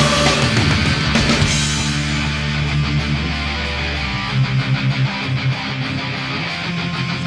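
Goal song after the goal horn: loud punk-rock music with strummed electric guitars. About four seconds in, the low bass drops away and the guitar plays a run of short, quick chugs.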